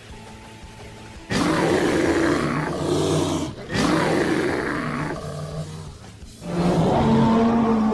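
A creature sound effect: three loud roars, each a couple of seconds long, over quiet instrumental background music.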